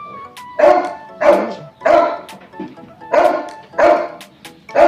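A dog barking repeatedly, about six barks coming mostly in pairs, over background music.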